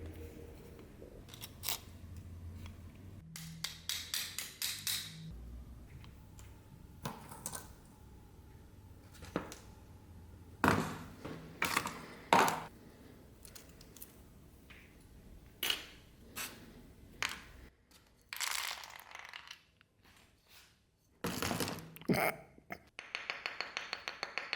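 Metal knife parts and tools handled on a hard work surface: a string of separate clicks, knocks and short scrapes, ending in a quick rattling run of ticks.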